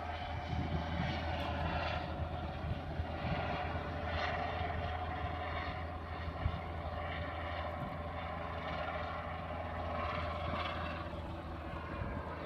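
Helicopter running steadily, its engine and rotor giving a constant low hum with a higher whine above it.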